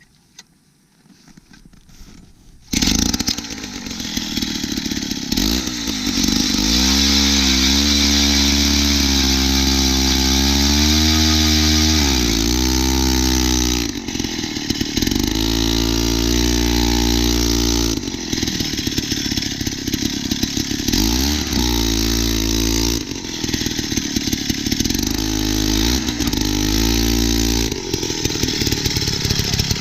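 Gas-powered ice auger starting up about three seconds in and running loud, its engine revving up and down as it drills through lake ice.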